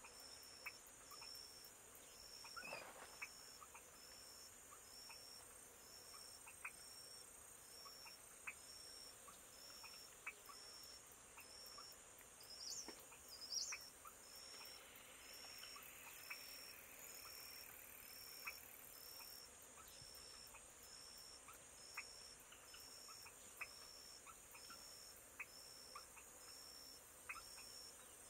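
Near silence with a faint, high-pitched insect chirp repeating about once a second, scattered soft ticks, and two brief high chirps about halfway through.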